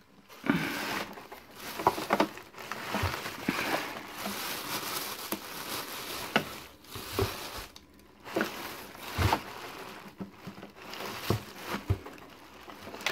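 Plastic carrier bags and crumpled newspaper packing rustling and crinkling as they are handled in a cardboard box, with scattered knocks and bumps.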